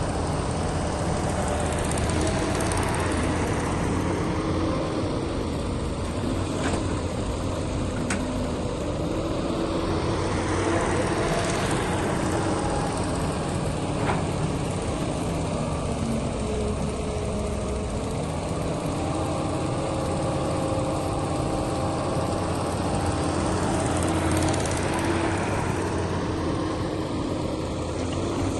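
Heavy diesel machinery running steadily, with a faint whine that slowly shifts in pitch and a few sharp clicks.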